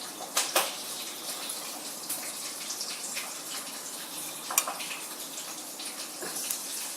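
Chicken frying in hot oil: a steady sizzle with scattered sharp pops.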